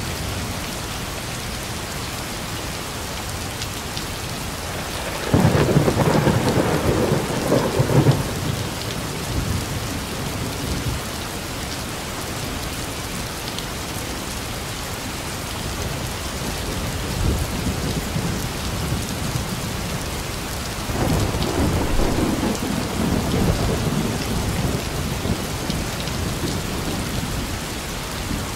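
Heavy rain falling steadily, with two rolls of thunder. The first breaks suddenly and loud about five seconds in and rumbles for about three seconds. The second swells about twenty seconds in and rolls on for several seconds.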